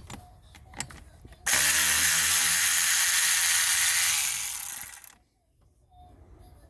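Socket ratchet clicking rapidly and steadily for about three seconds as a 10 mm nut on the fan clutch is run off, after a few light clicks of the tool being set on the nut.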